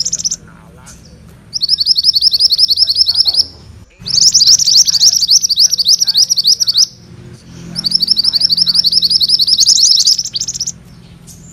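Mantenan kuning songbird singing its rolling song: rapid runs of quick, repeated upswept chirps, each run lasting about two to three seconds. There are three runs, the first about a second and a half in, with short pauses between them.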